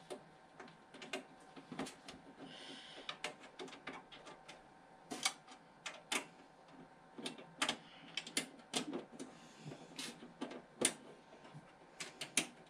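Irregular light clicks and knocks of small hard objects, plastic and metal, being handled and set down, a dozen or more spread unevenly through the stretch.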